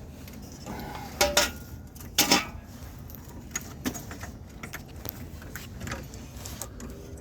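Metal hardware clinking and knocking as toggle bolts and a hammer are handled: two louder knocks about one and two seconds in, then scattered lighter clicks.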